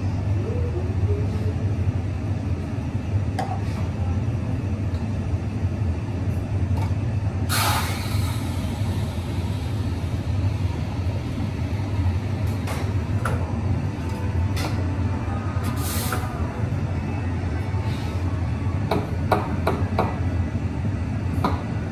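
Espresso bar at work: a steady low hum underneath two short hisses of steam, typical of a Synesso espresso machine's steam wand being purged, about a third of the way through and again about three quarters through. Scattered clinks and knocks of cups and portafilters run through it, most of them in the second half.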